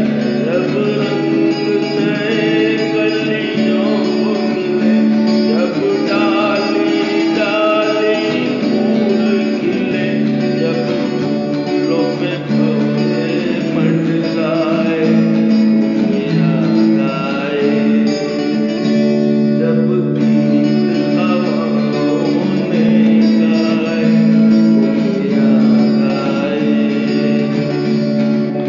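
A man singing a Hindi film song unplugged, with strummed acoustic guitar accompaniment.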